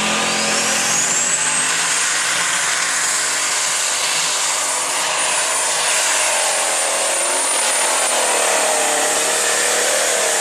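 Open Super Stock pulling tractor's turbocharged engine at full power under load from the sled. A high turbo whine rises in pitch over the first second and a half, then holds steady, over loud, continuous engine noise.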